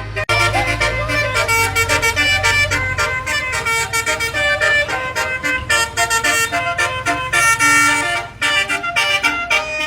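Truck-mounted telolet (basuri) musical air horn tooting a fast, busy run of multi-tone notes, over a steady low rumble.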